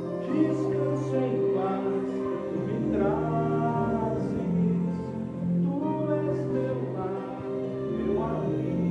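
Music: a group of voices singing a song in harmony over instrumental accompaniment.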